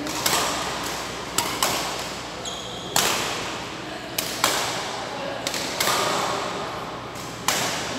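Badminton rackets striking a shuttlecock in a rally, sharp cracks about once a second, some in quick pairs, each ringing on in the echo of a large hall.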